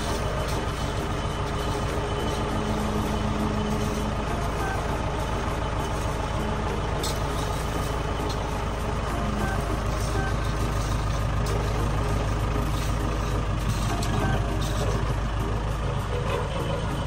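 A heavy vehicle engine running steadily, a low even rumble.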